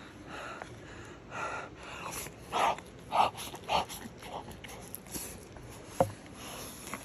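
A person eating with his mouth close to the microphone: chewing and breathing noises through the nose and mouth, with three short, louder ones in quick succession around the middle. A single sharp click comes about six seconds in.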